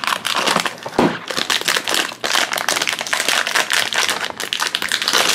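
Foil blind bag crinkling and crackling in the hands as it is pulled from its cardboard blind box and worked open, a dense run of rapid crackles.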